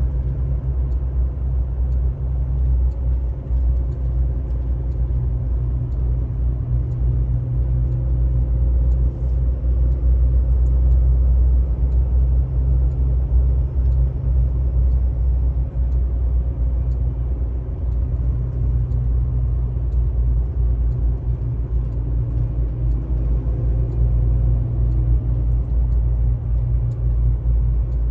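Vehicle driving along a highway at speed: steady low road and engine rumble with tyre noise, heard from inside the vehicle.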